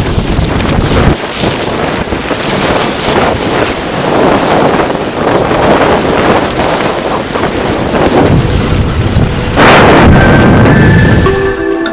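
Wind buffeting the microphone and the hiss of skis running over snow on a fast descent, loud and gusting. Music comes in near the end.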